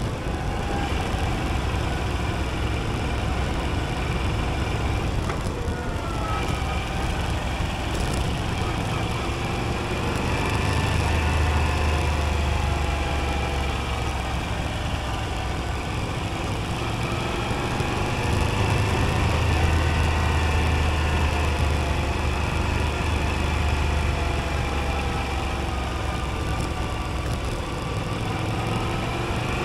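Moto Guzzi V85TT's air-cooled V-twin engine running as the motorcycle is ridden along a winding road. Its pitch rises and falls gently with the throttle and gear changes, and it runs heavier and louder twice, around the middle.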